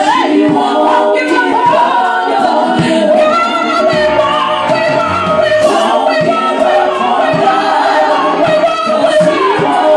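Gospel praise-and-worship singing: a group of women singers on handheld microphones, amplified through the church sound system, holding long sustained notes together.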